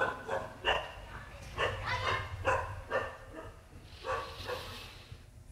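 A dog barking in the background, a string of about seven short barks spread over the first four and a half seconds.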